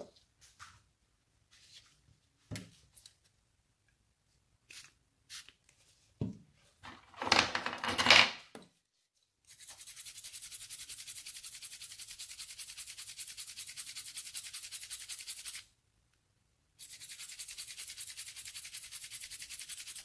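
Small brush scrubbing a mobile phone's circuit board in fast, even strokes, to clean dust away from a capacitor. It comes in two spells, about six seconds and then about four seconds, with a short break between. Before that there are scattered clicks and a louder clatter of tools and the board being handled.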